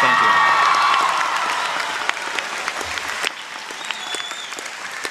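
Large audience applauding, the clapping easing off a little toward the end.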